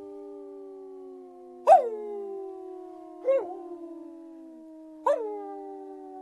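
Several canines howling together in long, overlapping howls. Each new howl comes in sharply with a quick drop in pitch, then holds and sinks slowly; new howls enter about two, three and five seconds in.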